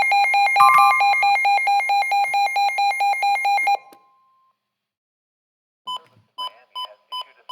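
Emergency alert electronic alarm beeping rapidly, about five beeps a second, for a special marine warning. It stops suddenly a little under four seconds in. After about two seconds of silence, short beeps resume about twice a second, with a voice starting under them near the end.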